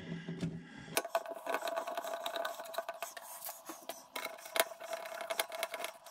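Screwdriver working on the plastic fittings of a toilet cistern's flush mechanism: irregular small clicks, taps and scraping as the parts are handled and fastened back into place.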